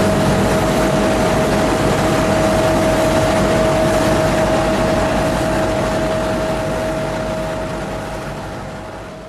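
A truck engine running close by with even low pulsing, a steady whine held over it; the sound fades out near the end.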